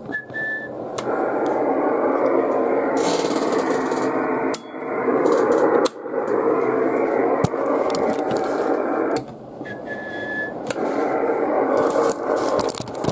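Receiver hiss and static from a Yaesu FT-450D transceiver's speaker on the 11 m band in USB, with no signals coming in. The hiss cuts out several times, and a short steady beep sounds at the start and again about ten seconds in.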